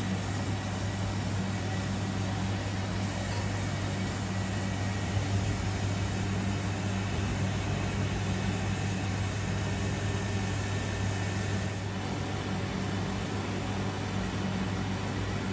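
Steady hum with a broad even hiss, the running noise of a commercial kitchen's extraction fan and gas range burner, with no distinct events.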